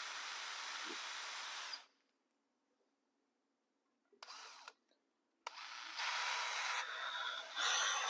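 Power drill with a 1/16 inch bit drilling a pilot hole into a boot sole. It runs steadily and stops about two seconds in. After a short burst just past four seconds, it runs again from about five and a half seconds to the end.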